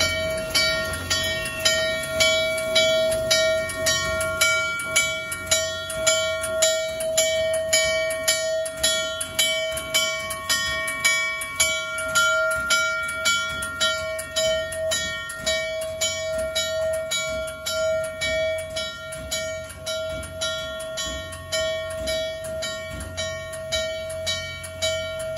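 Background music of plucked string notes repeating in a steady pulse over a held tone, with a faint low rumble underneath that grows a little near the end.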